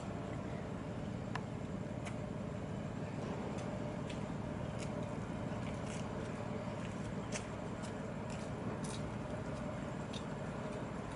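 Steady low rumble of a large container ship's machinery as the hull slides close past, with a faint steady hum and scattered short, thin high ticks.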